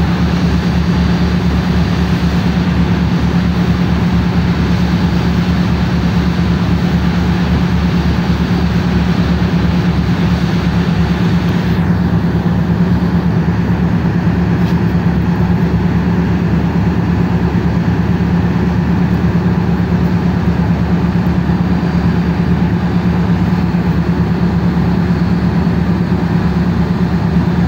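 Tugboat's diesel engine running steadily under load while the tug pulls on the tow line to a grounded coal barge: a loud, deep, even drone with a fast low throb.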